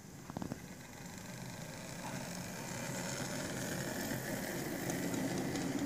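Bachmann OO gauge Class 24 model diesel locomotive and its train of goods vans running along the track: a steady rumble of motor and wheels that grows louder as the train comes closer, with a few sharp clicks about half a second in.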